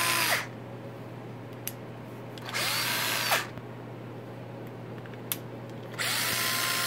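A 1990s Makita 9.6 V cordless drill running on a 12 V Milwaukee M12 lithium-ion pack, triggered in short runs. A run ends just after the start, a second lasts under a second about two and a half seconds in, and a third starts near the end. Each time the motor whine rises to speed and falls away when the trigger is released, with two small clicks in the pauses.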